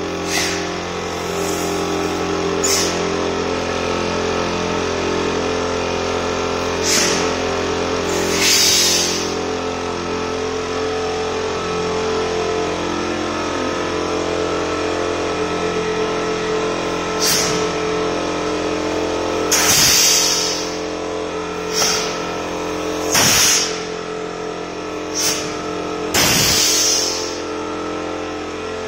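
Pneumatic valve actuators let out short hisses of compressed air, about ten of them at uneven intervals and each under a second long, as the inlet valves are stroked during testing. A steady engine-like machine hum runs underneath.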